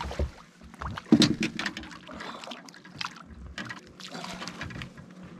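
Water splashing and sloshing with irregular knocks and rattles as a big striped bass is landed, over a faint steady low hum.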